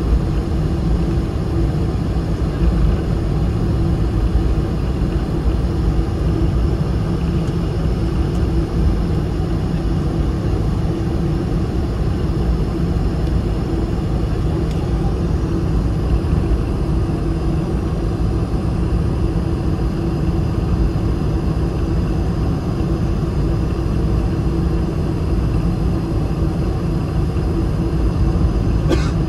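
Cabin noise inside a Boeing 747-400 taxiing: a steady low rumble from its four engines at taxi power and the rolling airframe. A short click sounds near the end.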